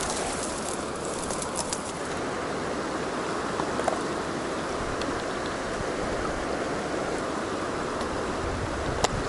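Fast-flowing river current rushing steadily over a rocky bed. There is light crackling of dry grass stems in the first two seconds and a single sharp click near the end.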